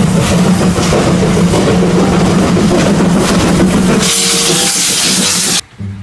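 Steam locomotive running, a loud dense rumble with a strong low hum. About four seconds in, a loud hiss of steam joins it. The sound cuts off suddenly shortly before the end.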